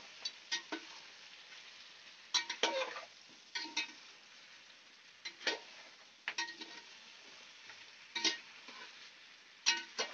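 Mutton with ginger-garlic paste frying in oil in a steel pot, a steady sizzle, while a metal spoon stirs it, clinking and scraping against the pot at irregular moments every second or two.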